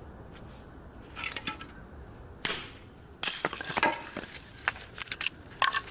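A run of sharp knocks and clinks, some with a short ring, from firewood and metal being handled at a wood-burning stove.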